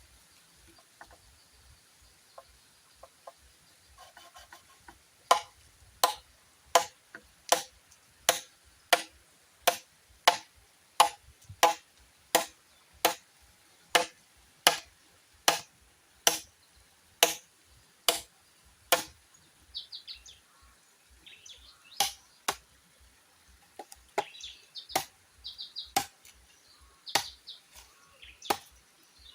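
Repeated chopping strikes of a blade into bamboo: evenly spaced blows a little over one a second, turning irregular about two-thirds of the way through. Birds chirp briefly in between.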